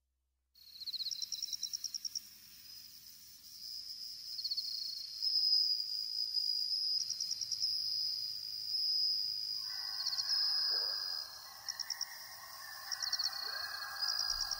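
Insects chirping in high-pitched, rapidly pulsed trills that repeat in bursts. A faint layer of sustained lower tones joins about ten seconds in.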